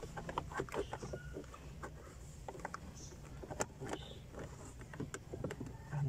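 Hands working a car's plastic centre-console trim panel around the handbrake, making a string of light, irregular clicks and taps as the panel is fitted and pressed.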